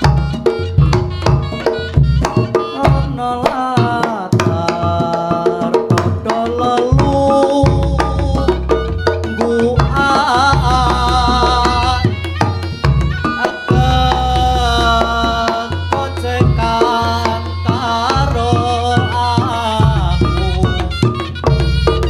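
Instrumental break of a Javanese song played loud through a sound system: hand drums keep a steady rhythm over heavy bass while a wavering melodic lead plays on top.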